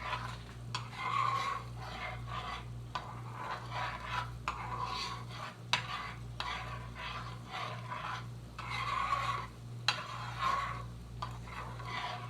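Butter dipping sauce being stirred in a pan, a run of irregular scraping strokes of the utensil against the pan, over a steady low hum.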